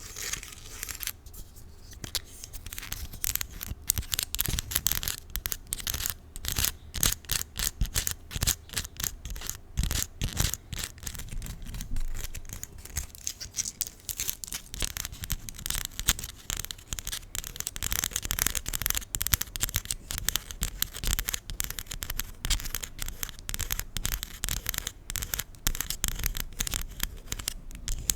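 Long acrylic nails scratching and tapping on a plastic spiral fidget toy, recorded close to the microphone: a dense, rapid run of clicks and scratches.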